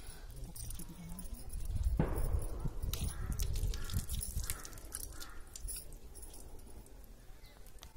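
Faint outdoor background with a low rumble, and a single sharp knock about two seconds in.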